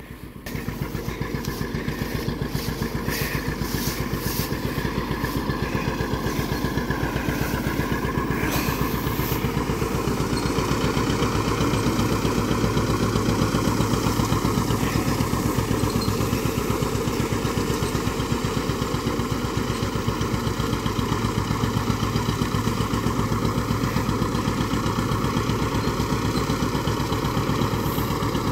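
John Deere 720's two-cylinder engine running under load as it pulls a hay rake, its exhaust beating out a rapid, even putting. It gets sharply louder about half a second in and keeps growing louder until about halfway through as the tractor comes close, then holds steady.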